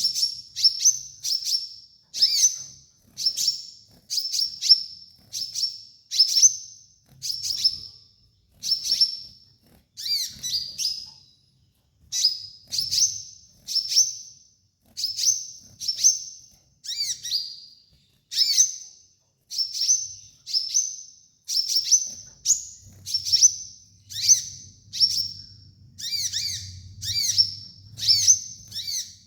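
Sunbird (the 'kolibri ninja' of Indonesian bird-keeping) calling over and over: short, high, sharp chirps with a quick falling tail, a little more than one a second. It is used as a training call for caged sunbirds. Toward the end some chirps carry an extra lower note, and a faint low hum comes in under them.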